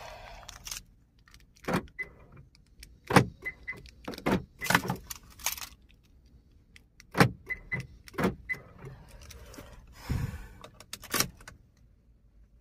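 Car keys jangling, with about ten irregular clicks and clunks as the ignition key and a Nippon aftermarket remote are worked through the steps of matching the remote to the car.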